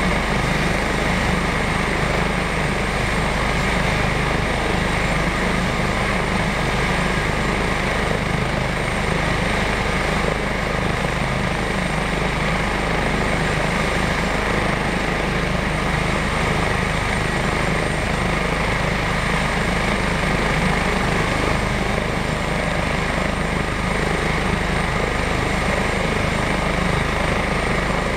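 Airbus H145 twin-turbine helicopter running on the ground with its rotor turning: a steady, even drone of rotor and turbines with a thin high whine over it, unchanged throughout.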